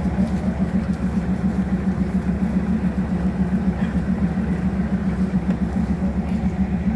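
A diesel engine idling steadily, with a fast, even low pulsing and no change in speed.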